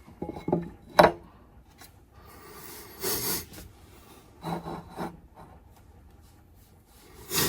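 Handling of fuel rails and fittings: a sharp click about a second in, then a short scraping rub around three seconds, with softer knocks as the parts are moved into position.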